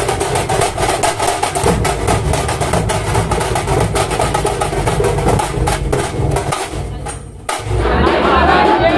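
Dhol-tasha troupe drumming: a fast, dense run of even strokes over deep drum beats, which fades out about seven seconds in. Music with a singing voice starts near the end.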